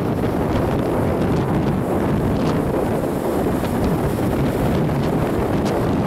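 Strong wind buffeting the microphone: a loud, steady rumble.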